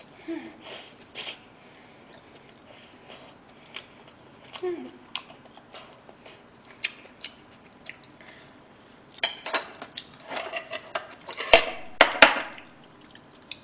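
Close-up eating sounds: soft chewing and mouth clicks over a mouthful of fried rice, then from about nine seconds in, a fork and chopsticks clinking and scraping against the plate in a cluster of sharp knocks, the loudest sounds here.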